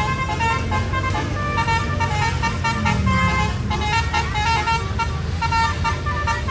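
Bus 'telolet basuri' multi-tone horn playing a quick melody of short stepped notes, over the steady low rumble of the bus's engine.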